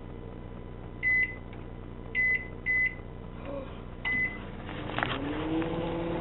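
Microwave oven keypad beeping four times as buttons are pressed, then a click and the oven starting up, its hum rising briefly in pitch and then holding steady.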